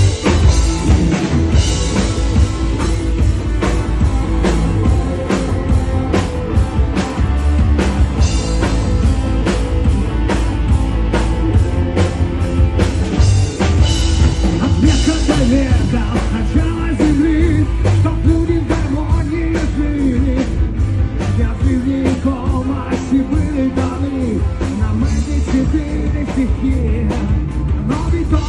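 Rock band playing with drum kit and electric guitars, a loud, dense passage with a steady drum beat.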